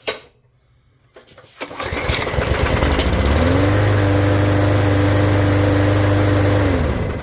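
Hyper Tough 20-inch push mower's Briggs & Stratton E300 series engine pull-started cold after priming, catching at once and rising in pitch to a steady run. It winds down and stops near the end.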